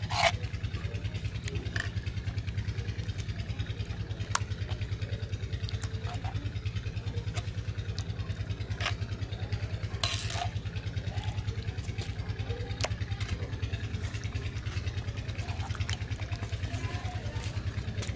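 An engine or motor running steadily with an even low throb, several pulses a second, and a few light clicks over it from a spoon against the bowl.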